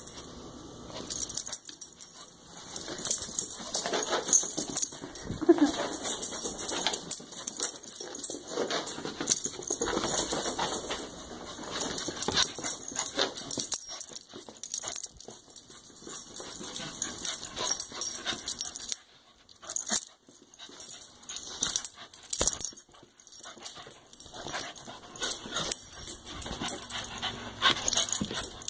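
An excited Australian shepherd–corgi mix dog right up against the microphone, its fur and movements making a constant run of rubbing, rustling and clicking noises, with a short whine about five seconds in. The noise breaks off for about a second near the twenty-second mark.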